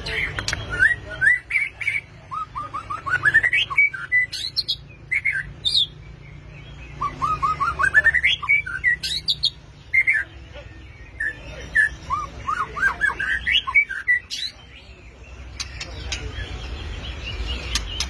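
White-rumped shama singing: phrases of clear whistled notes, many climbing in quick runs, with occasional higher sharp notes and short pauses between phrases. The song stops a few seconds before the end.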